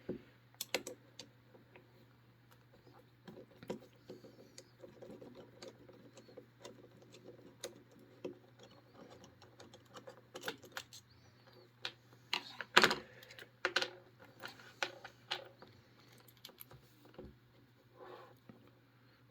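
Scattered small clicks, taps and rattles from handling an opened Master Lock 930/6230 round-body padlock and its picking tools, with the sharpest tap about 13 seconds in, over a steady low hum.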